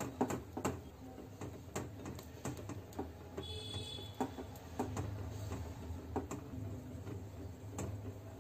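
Small metal wire whisk clicking and tapping against a ceramic bowl in irregular strokes while stirring melting butter, over a low steady hum. A brief high tone sounds about three and a half seconds in.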